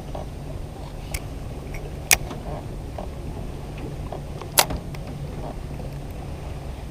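A few sharp clicks from handling a spinning rod and reel, the two loudest about two and a half seconds apart, over a steady low hum.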